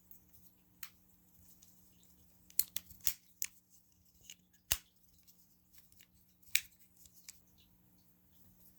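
Scattered, irregular sharp clicks and light rustles of small plastic fidget toys being handled, the loudest clicks a few seconds in and near two-thirds through.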